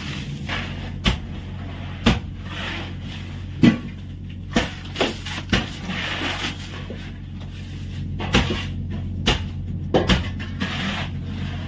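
Shovels chopping into and scraping packed ice in a fishing boat's fish hold: irregular sharp knocks, about a dozen, over a steady low hum.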